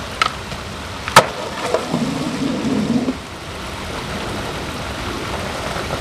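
Shallow stream of running water, a steady rushing hiss, with a sharp click just after the start and a loud sharp knock about a second in.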